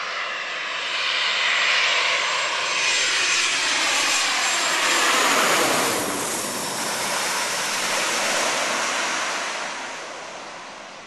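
Embraer ERJ-145 regional jet passing low overhead on landing approach, its two Rolls-Royce AE 3007 turbofans whining. The pitch drops as it passes over about five seconds in, and the sound fades near the end as the jet moves off toward the runway.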